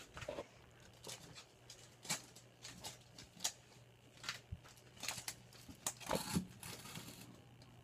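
Faint scattered clicks and rustles over a low steady hum, with a small cluster of them about six seconds in.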